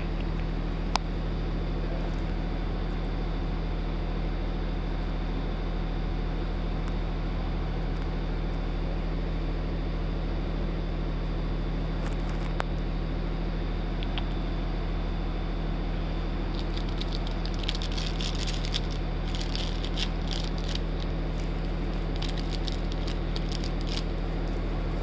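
Steady low mechanical hum of running shop machinery, with a single click about a second in and a run of quick, light crackling rustles in the last third.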